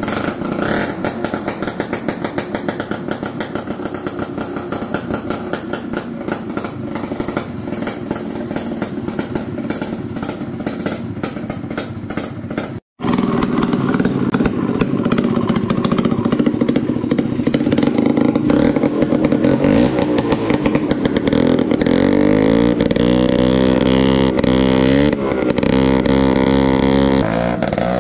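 Two-stroke 250 Rotax snowmobile engine in a homemade racing lawnmower, running steadily. It drops out briefly just before the middle, then comes back louder, with the revs rising and falling again and again near the end.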